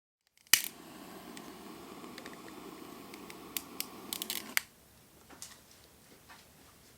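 Wood fire crackling, with a steady rushing sound and scattered sharp pops. The rushing stops abruptly about four and a half seconds in, leaving faint, sparse crackles.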